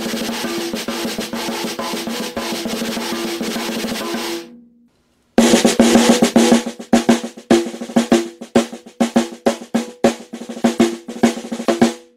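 Free-floating PVC-shell snare drum with an Evans ST coated top head, Pure Sound Custom Pro snare wires and a donut ring muffler, played with sticks: a steady snare roll that dies away about four and a half seconds in, then after a short pause a second passage of rolls and single strokes, each with a short ring.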